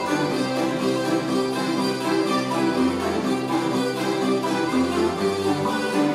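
A Hungarian citera (folk zither) ensemble playing a folk tune together, many strummed strings sounding at once in quick repeated notes.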